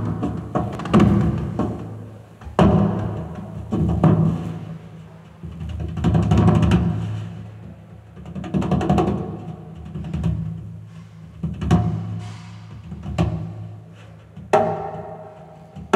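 Percussion music: low drum strikes, each ringing on and fading, coming roughly once every second or so, with lighter sharp clicks between them.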